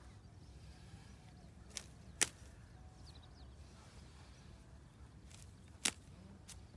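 A few sharp, brief clicks over a low steady rumble: one at about two seconds and another near the end.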